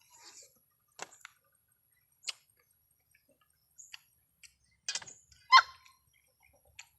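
Sparse crunching clicks from chewing raw talangka crab shells, about one a second, with a brief louder pitched cry about five and a half seconds in.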